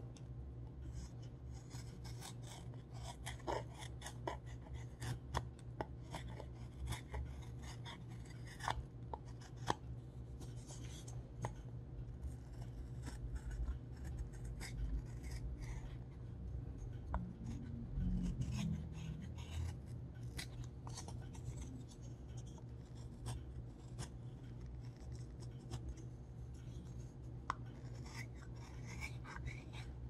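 Scattered light clicks, taps and scrapes of small objects being handled, over a steady low hum, with a brief low rumbling bump about two-thirds of the way through.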